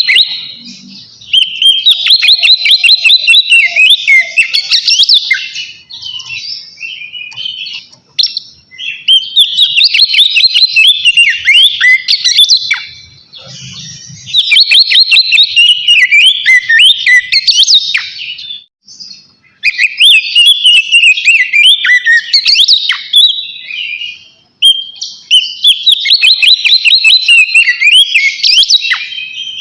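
Oriental magpie-robin (kacer) singing loudly in full, open song. Its varied whistled phrases come in bouts of about four to five seconds, broken by short pauses, five times over.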